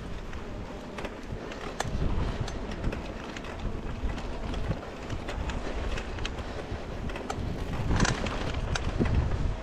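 Mountain bike rolling over a bumpy grassy trail, heard through a handlebar-mounted camera: a steady low rumble of tyres and frame, with irregular knocks and rattles as the bike jolts over bumps, the hardest about two and eight seconds in.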